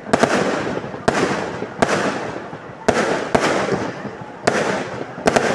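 Fireworks going off: about seven sharp bangs, roughly one a second and some in quick pairs, each trailing off in a crackle that dies away.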